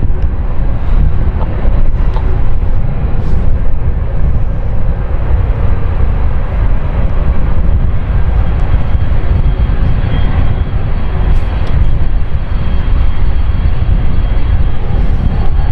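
Jet airliner engines running loud and steady, mostly a low rumble with a faint high whine over it.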